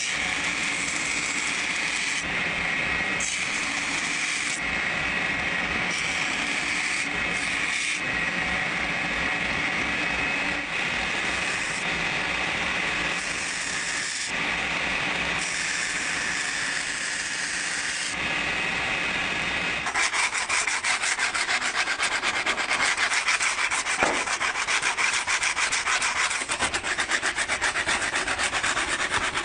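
Abrasive grinding of the steel knife blank: a steady rasping sound with a few brief breaks. After about twenty seconds it takes on a fast, even pulsing.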